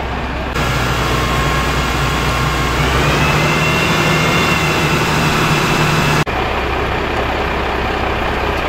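Fire engine running with a steady low drone from its engine and pump. For most of the middle a louder hiss joins, with a thin whine that rises about three seconds in; the sound changes abruptly as it starts and stops.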